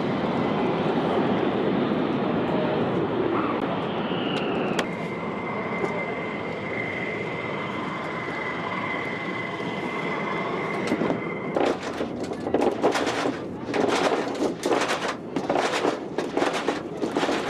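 Flight-line noise around parked Saab Gripen fighters: a steady rushing din with a thin high turbine whine that steps down in pitch about five seconds in, then from about twelve seconds on a quick string of loud irregular rushes of noise.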